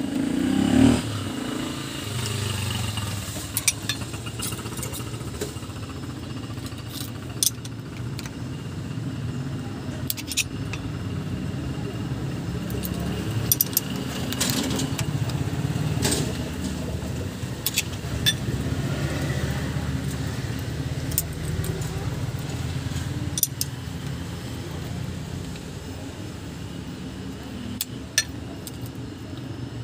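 Scattered small metal clicks and clinks of a ring wrench, screwdriver and feeler gauge working a rocker-arm adjusting screw and locknut while the valve clearance is set. There is a louder thump about a second in, over a steady low rumble.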